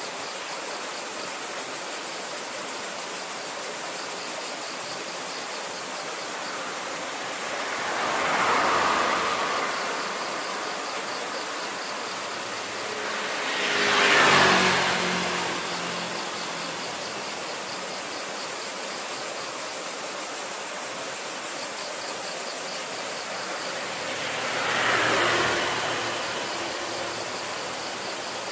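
Three road vehicles pass by one after another, each rising and fading over a couple of seconds; the second is the loudest, its pitch dropping as it goes by. Between them is a steady background hiss, with a faint pulsing chirr in the high range.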